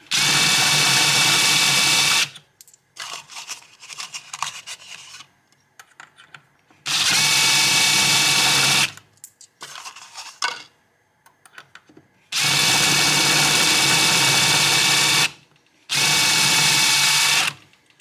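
DeWalt cordless drill spinning a Hoover meplat trimmer in four runs of about two to three seconds each, cutting the tips of rifle bullets. Between the runs there are quiet clicks as bullets are handled and swapped.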